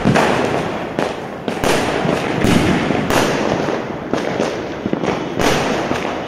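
Aerial fireworks bursting in quick succession at night, one sharp bang about every half second to a second, with crackling and hissing sparks in between.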